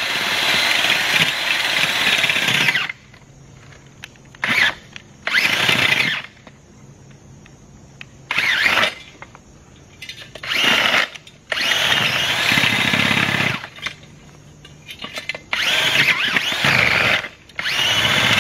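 Makita cordless earth auger boring into packed dirt, its motor running in repeated bursts of a fraction of a second to about three seconds, with short pauses between them.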